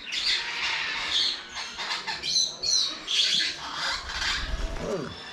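Birds squawking and chirping in a run of short, harsh, overlapping calls.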